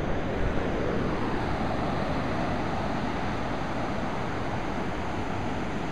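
Surf breaking and washing up the beach on a rough sea, a steady noise of waves, with wind blowing on the microphone.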